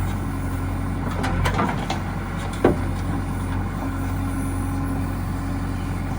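Backhoe loader's diesel engine running steadily, with a few light knocks and one sharp metallic knock a little under three seconds in.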